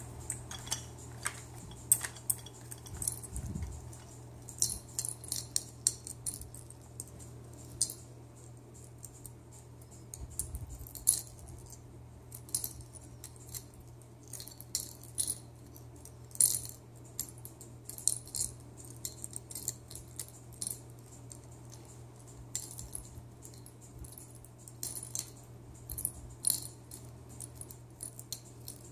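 A raccoon handling hard plastic baby toys: irregular light clicks, taps and rattles, sometimes several in quick succession.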